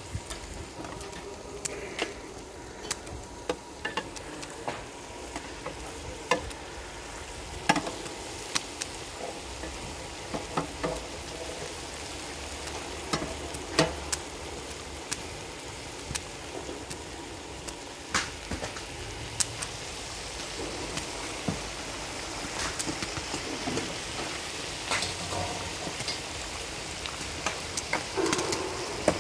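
A metal skimmer clinking and scraping against an enamel bowl and a cooking cauldron as chicken pieces are moved back into the pot, with sharp irregular clicks over a steady sizzle from the food cooking.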